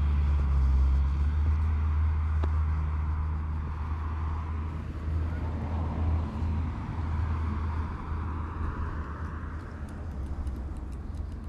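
Street traffic: a low vehicle engine rumble with road noise that slowly fades.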